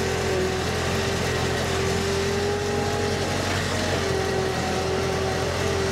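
Forklift engine running steadily with a low hum and a held whine that briefly drops in pitch a little past the middle.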